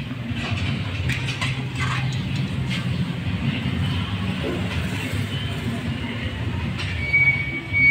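Light metal clicks and taps as the cylinder barrel of a Bajaj CT125 engine is worked down over the piston onto the crankcase, over a steady low mechanical hum. A thin high steady tone comes in near the end.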